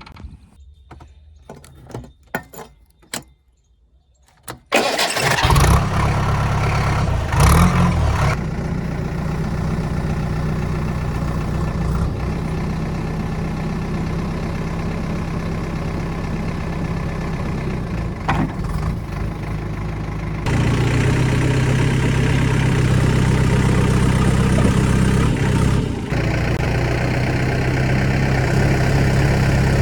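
A JCB backhoe loader's Kirloskar diesel engine starts after a few clicks, about five seconds in, and briefly revs before settling into a steady run. About two-thirds of the way through it steps up louder.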